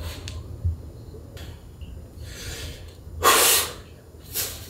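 A man breathing out hard while he flexes into bodybuilding poses. There is a moderate exhale, then a loud, sharp one about three seconds in, and a shorter one near the end.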